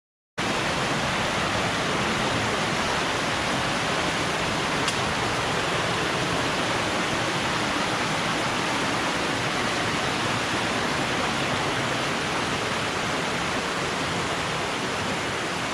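Waterfall and creek water rushing steadily, a dense even hiss that cuts in abruptly just after the start.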